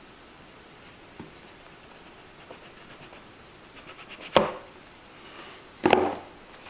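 A small cardboard product box being opened and its contents handled: faint rustling and small clicks, then two sharp knocks about a second and a half apart, the first about four seconds in.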